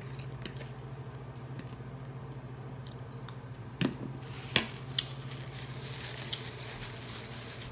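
A metal fork clicking and scraping against a plate, with a few sharp clicks about four to five seconds in, over a steady low hum.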